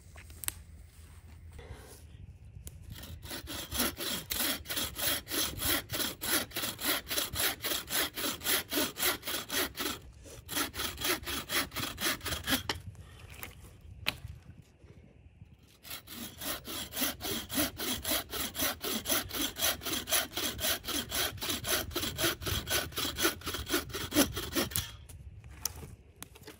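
Bucksaw cutting through a dead branch in quick, even back-and-forth strokes, about three a second. It stops briefly about ten seconds in, then for a few seconds around the middle, and saws on until near the end.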